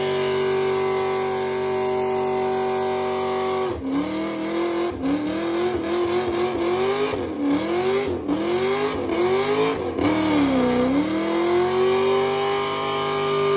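Car doing a burnout: the engine is held at steady high revs with the rear tires spinning, then a little under four seconds in its pitch starts rising and falling about once a second as the throttle is worked, before settling back to a steady high note near the end.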